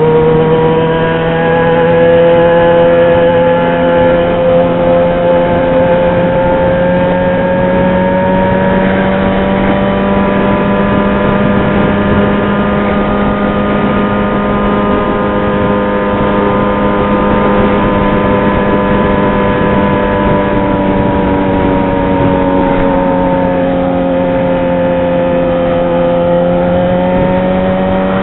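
Yamaha XJ6 motorcycle's inline-four engine running loud at a steady cruise. Its pitch climbs slowly, eases down about two-thirds of the way through, then rises again near the end.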